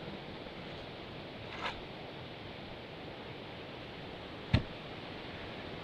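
Steady wind hiss, with a short rasp about a second and a half in and one sharp click about four and a half seconds in as fishing gear is handled.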